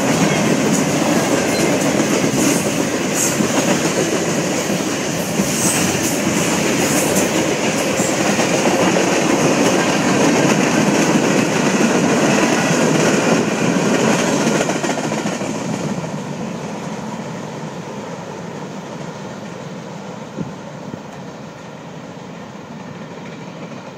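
Norfolk Southern freight train's cars rolling past close by: a loud, steady rumble and clatter of wheels on rail, with short sharp high-pitched sounds in the first several seconds. The noise fades from about two-thirds of the way through as the end of the train passes and draws away.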